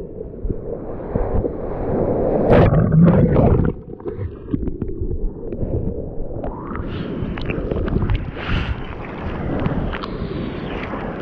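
Sea water splashing and rushing around an action camera held low at the water surface on a bodyboard in whitewater, with wind buffeting the microphone. It is loudest about two and a half to three and a half seconds in, then drops suddenly and goes muffled for a moment before the splashing returns.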